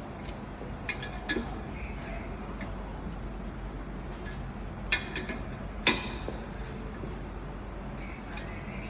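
Scattered metallic clinks and taps of steel tools and engine parts being handled, loudest twice about five and six seconds in, over a steady low machine hum.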